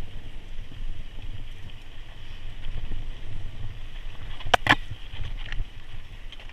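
Mountain bike riding down a rocky dirt singletrack: a steady low rumble and rattle from the tyres and frame over the ground, with two sharp clacks a little past halfway.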